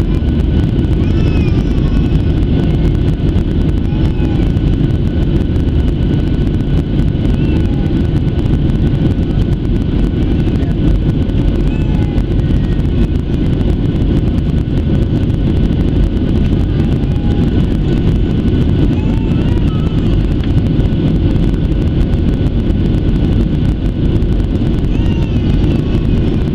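Steady in-flight cabin noise of a Boeing 737-700 heard from a window seat over the wing: a dense low rush of airflow and CFM56 turbofan engines, with faint steady whine tones above it.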